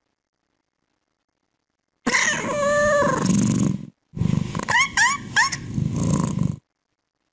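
Domestic cat vocalising: one long drawn-out meow starting about two seconds in, then after a short break three quick rising chirps over a low rough rumble. It cuts off suddenly.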